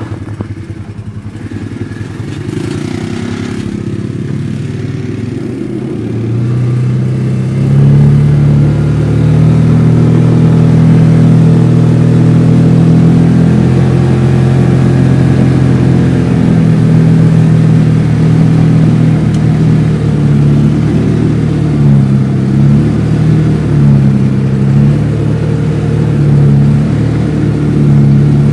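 Side-by-side UTV engine heard from the cab: a low pulsing idle, then the engine pulls away about six seconds in and runs steadily at trail speed, the revs dipping and rising several times near the end.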